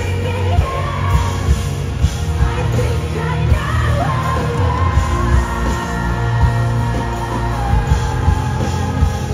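Live rock band playing in an arena: a woman sings held, wavering lines over loud electric guitars, bass and pounding drums, heard from within the audience with a heavy, booming low end.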